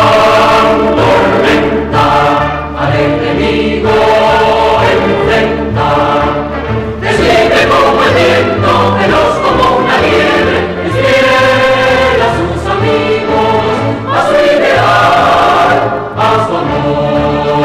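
A choir singing with an orchestra accompanying it, a TV theme song.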